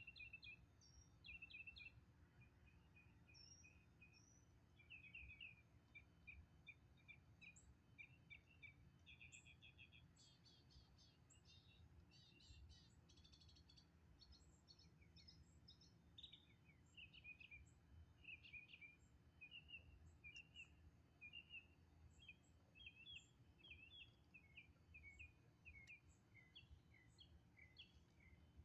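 Faint birds chirping and calling outdoors, many short high notes and little rising and falling chirps throughout, over a low steady background noise.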